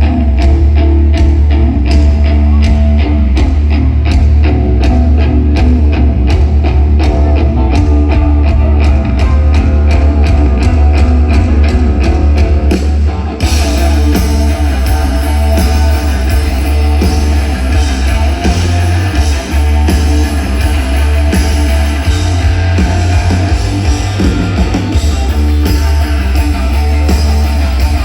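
Live rock band playing an instrumental passage, loud through a phone's microphone: heavy bass, guitar and drums on a steady beat. About halfway through, the band comes in fuller and brighter.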